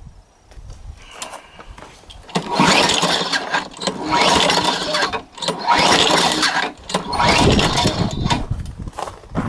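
Cold-start attempt on a Craftsman lawnmower's 6.75 HP Tecumseh engine at sub-zero temperature. After a couple of quiet seconds the engine fires and runs loudly in three surges of two to three seconds each, dipping briefly between them.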